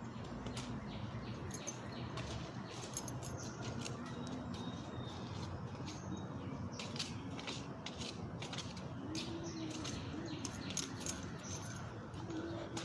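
A dove cooing low, rising and falling, once about nine seconds in and again near the end. Under it runs a steady outdoor background hiss with many short, high clicks.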